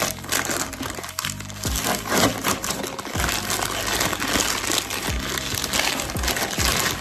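Crinkling and rustling of white packing wrap being handled and pulled out of a cardboard camera box, over background music with a low beat.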